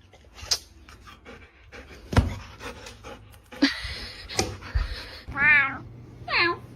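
A cat meows twice near the end, the first call wavering in pitch. Before that come a few sharp knocks and a short rushing noise.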